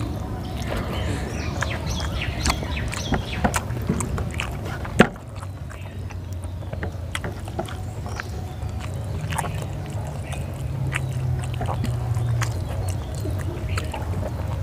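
Fingers working rice on a steel plate during a hand-eaten meal: scattered small clicks and scrapes, with a sharp tap about five seconds in. Under it there is a steady low rumble, and a low hum comes in around nine seconds and fades near twelve and a half.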